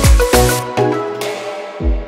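Background music: an upbeat electronic track with a steady kick-drum beat. About halfway through it turns muffled as the treble fades away, and the beat pauses briefly before coming back near the end.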